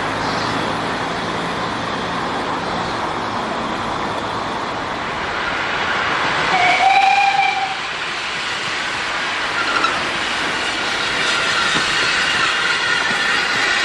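Steam locomotive whistle, one blast about a second long halfway through, over the steady running noise of a steam tank engine hauling a train of coaches.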